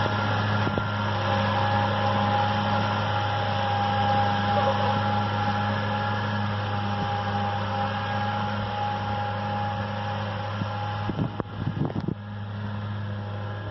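Valtra N142 tractor's six-cylinder diesel running steadily under load while driving a Claas disc mower, with a steady whine above the engine note. About eleven seconds in there are a few sharp knocks, and after them the sound is a little quieter.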